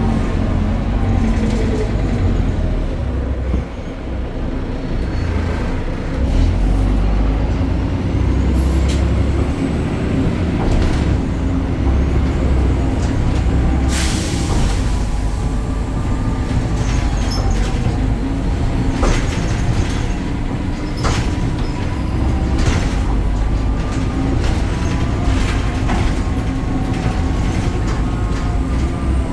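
BredaMenarini Avancity Plus city bus under way, its Deutz diesel engine and ZF automatic gearbox running with a whine that rises and falls in pitch, among clicks and rattles. About halfway through comes a short, loud hiss of air, typical of the air brakes.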